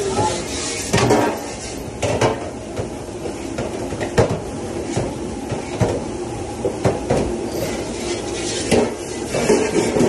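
Stainless steel hotel pans and sheet pans clanking and clattering as they are handled and stacked, about ten sharp clanks at irregular intervals, over a steady rushing background.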